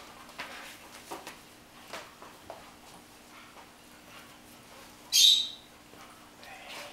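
Scuffles and light clicks of a puppy tugging at a rag on a hard floor, with one short, sharp, high-pitched squeak about five seconds in.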